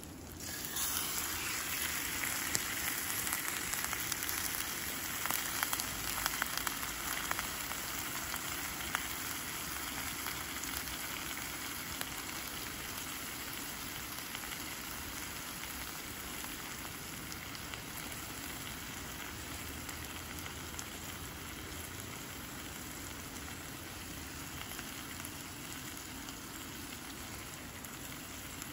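Sirloin steak sizzling in hot oil with hash browns in a stainless steel frying pan on a canister gas stove. The sizzle jumps up as the steak goes into the pan, with small spits and crackles, then eases slowly as it settles.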